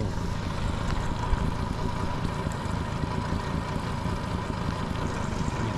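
Outboard motor running steadily at trolling speed, under a steady hiss of rain and wind.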